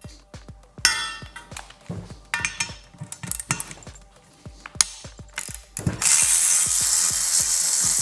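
A ratchet wrench clicking as the bolts of a motorcycle handlebar riser clamp are loosened, with scattered metal clinks. About six seconds in, a steady, loud rushing noise starts.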